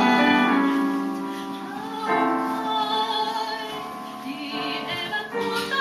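Music: long held melodic notes over sustained chords, with the harmony changing about two seconds in and again near the end.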